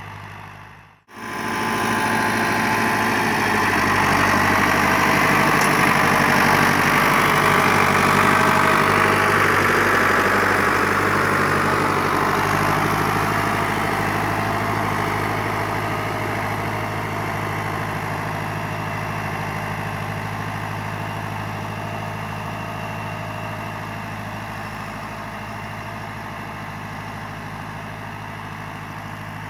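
1981 Ford 6600 tractor's diesel engine running under load as it pulls a three-disc plough through the soil. The sound cuts out briefly about a second in, comes back loud as the tractor passes close by, then fades slowly as it pulls away.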